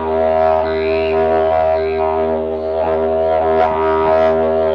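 Carbony carbon-fibre slide didgeridoo played in a road tunnel: a steady low drone with rich overtones. The overtones are shaped into shifting vowel-like sweeps, with a few sharp rhythmic accents in the second half.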